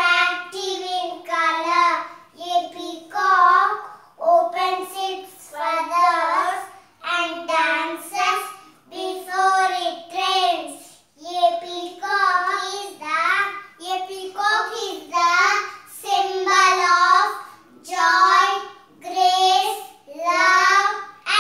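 Young children singing a song unaccompanied, in phrases of about a second each with short breaks between.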